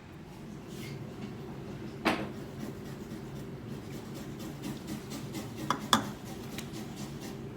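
Small hard objects being handled: a few sharp clicks and knocks, the loudest about two seconds in and a pair close together near six seconds, over a steady low hum.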